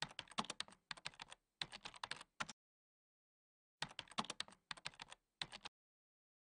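Typing on a computer keyboard: two runs of quick keystrokes, with a pause of about a second between them.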